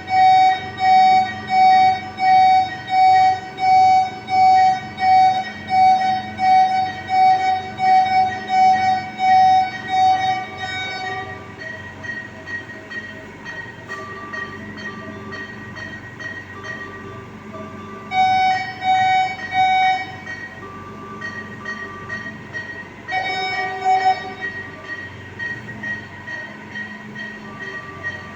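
Medical equipment alarm in a neonatal ICU, a pitched electronic beep repeating a little faster than once a second. It stops about ten seconds in and comes back twice later in short runs of a few beeps, while quieter, higher-pitched beeps from other equipment go on throughout.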